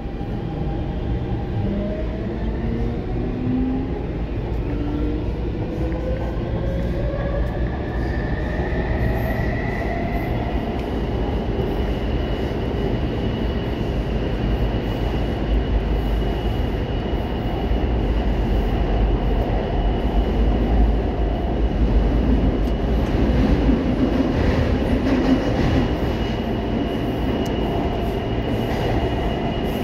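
Taipei Metro C321 train heard from inside the car: the traction motors give a whine that climbs in pitch over about the first ten seconds as the train picks up speed. It then settles into a steady high whine over the constant rumble of steel wheels on rail, growing a little louder past the middle.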